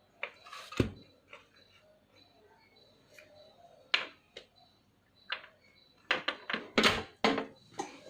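Scattered sharp clicks and light knocks of small laptop parts and tools being handled on a work surface, with a quick run of taps in the last two seconds.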